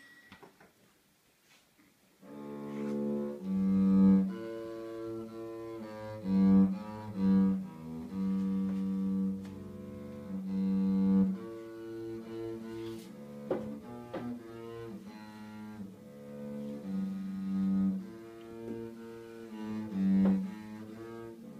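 Double bass played with a bow: a slow melody of sustained low notes, some held for a second or two and some short, starting about two seconds in after a brief hush.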